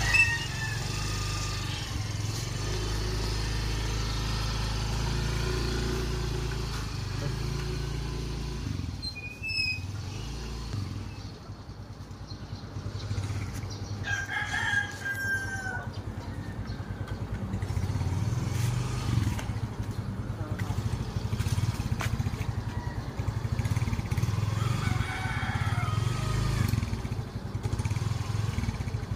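Motor scooter engine idling steadily, with a rooster crowing around the middle.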